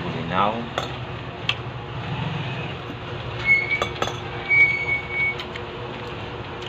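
Spoons and chopsticks clinking lightly against plates and bowls while people eat, a few separate clinks over a steady background hum. Two brief, steady high-pitched tones sound in the middle.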